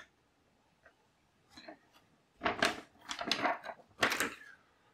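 Glossy paper catalogue pages being handled and turned: quiet at first, then a few short rustles in the second half.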